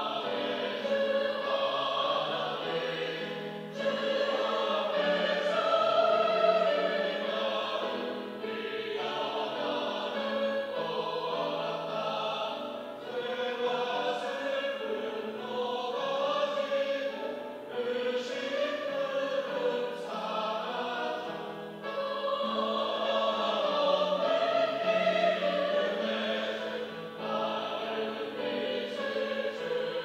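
Mixed church choir of men and women singing a Sunday anthem, in phrases of about four to five seconds with short breaths between them.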